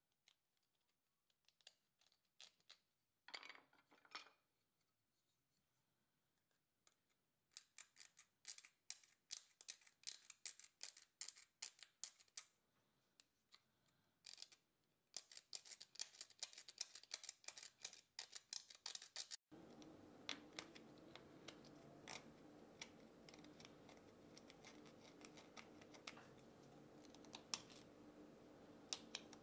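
Small hand carving blade scraping a tagua nut (vegetable ivory) in quick, short strokes, about four a second, in runs of a few seconds. A faint steady hum comes in suddenly about two-thirds of the way through, under the continuing scrapes.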